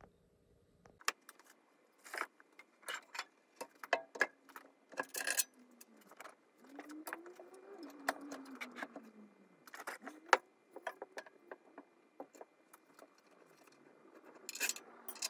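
Metal parts of a moped frame and engine clinking and knocking together as the frame is fitted onto the engine, in scattered sharp clicks. A drawn-out scrape that rises and then falls in pitch comes in the middle.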